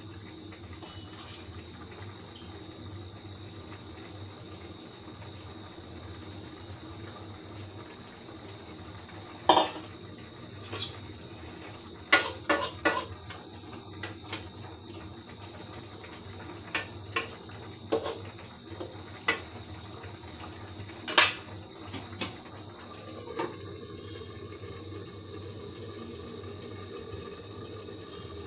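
A metal cooking utensil knocking and clinking against a cooking pan a dozen or so times, loudest about a third of the way in and again near two-thirds, over a steady low hum from the simmering pan.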